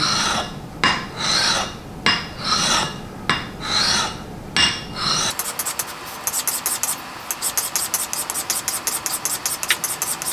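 Steel hatchet edge being rubbed freehand on a 300-grit diamond sharpening stone: a series of even scraping strokes, about three every two seconds. About halfway through it changes to a faster, even run of short ticks over a steady hum.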